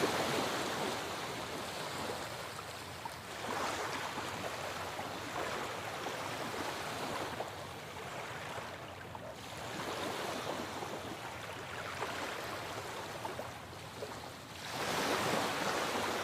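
Sea waves washing in with a rushing hiss that swells and ebbs in slow surges, about one every four to six seconds.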